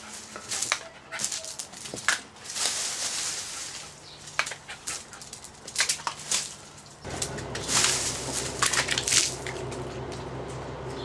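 Jack Russell terrier snapping at hanging water balloons: sharp clacks of its jaws in quick irregular runs, with water splashing as a balloon is bitten. A steady low hum comes in about seven seconds in.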